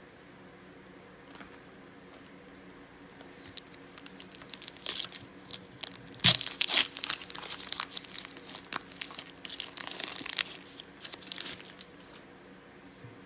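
Trading-card pack wrapper being torn open and crinkled by hand, a dense crackling that starts a few seconds in, is loudest about halfway, and dies down near the end.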